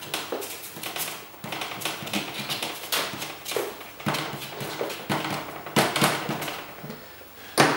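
Glue stick rubbed in short strokes over cardboard: an irregular run of scraping and tapping sounds, with one sharp click near the end.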